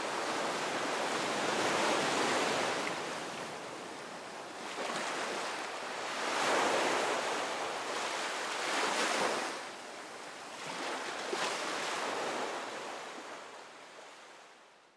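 Small surf breaking and washing up a sandy beach, swelling and ebbing every few seconds; it fades out near the end.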